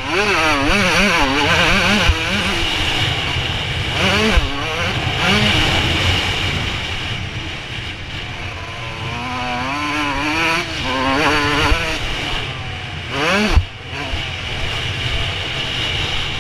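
Suzuki RM125 single-cylinder two-stroke motocross engine at full ride, its pitch swinging rapidly up and down as the throttle is worked and gears are changed, with one long rising rev near the end before it drops off suddenly. A few sharp knocks cut through, heard through a helmet-mounted camera.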